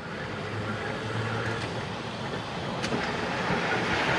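Sydney C-class electric tram no. 29 running along the track towards the listener, a steady rumble with a low hum, growing louder as it nears. Two sharp clicks come about one and a half and three seconds in.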